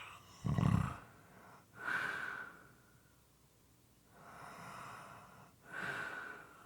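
Moist, irregular snoring from a sleeping person: a short, loud snort about half a second in, then three slower, noisy breaths, two of them starting with a brief whistling note.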